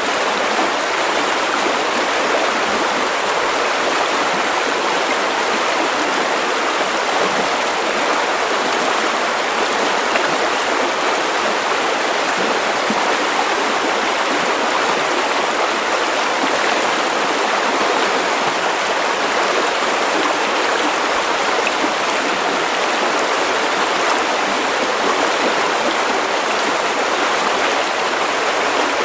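River water running steadily over stones, a continuous even rush of flowing water.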